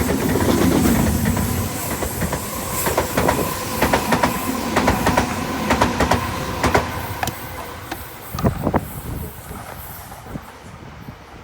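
Passenger train passing, its wheels clicking rapidly over rail joints above a steady running hum, fading away near the end as it leaves.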